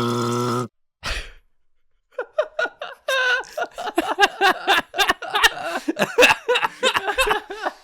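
A wet mouth sound effect: a few seconds of rapid, squelchy mouth noises, with smacks, clicks and quick vocal squeaks, starting about two seconds in. Before it, a steady held tone ends just under a second in.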